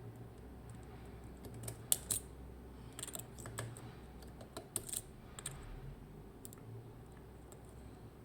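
Dimple-lock pick and tension tool working in the keyway of a Mottura C55 lock, making small irregular metal clicks as the pins and rotors are worked during picking.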